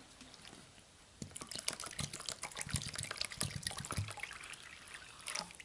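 Wet sloshing and squishing of a hand working through a bowl of watered-down clear-glue and borax slime, with water poured in from a plastic pop bottle to thin it. The splashing starts about a second in and runs until shortly before the end.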